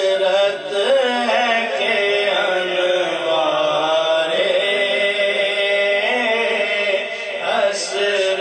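A man's solo voice singing a Siraiki naat (devotional verse) into a microphone, in long, wavering held notes, with a brief break near the end.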